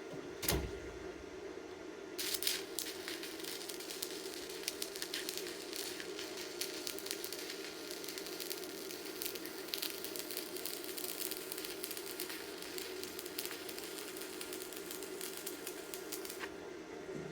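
Stick-welding arc from an E6013 rod run electrode negative, crackling steadily for about fourteen seconds as a bead is laid on steel hat channel. A single thump comes just before the arc starts.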